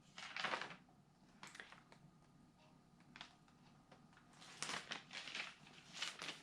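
Faint, scattered rustles and clicks, more frequent in the second half.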